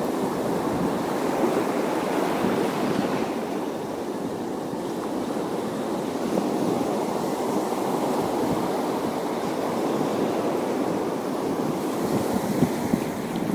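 Steady rushing of wind and water, with wind buffeting the microphone.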